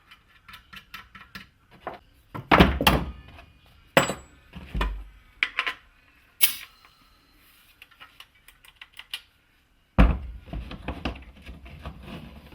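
Metal parts and hand tools clicking, clattering and knocking as the last bolt goes back into an air framing nailer, with a run of quick light clicks near the start and several heavier thunks.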